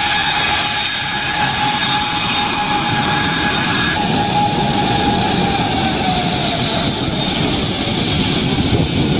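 A jet airliner's turbofan engines running at low power as it taxis: a steady whine of several tones over a rushing noise. About four seconds in the tones shift and the rushing noise grows brighter.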